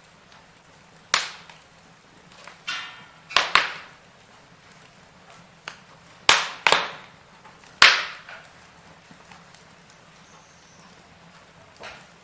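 Wood fire in a fireplace crackling, with a series of sharp pops, some in quick pairs, over a faint steady background.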